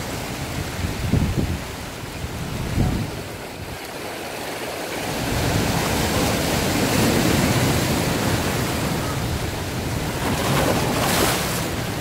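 Ocean surf surging and breaking among coastal rocks: two low thuds of waves in the first few seconds, then a louder rush of churning whitewater from about five seconds in, with a hissing wash near the end.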